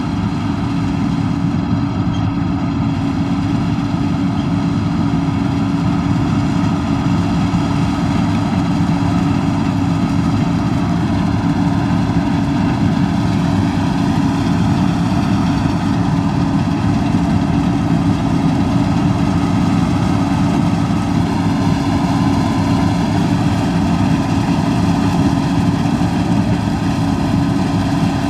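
Combine harvester running steadily while harvesting soybeans: an even, unchanging machine drone.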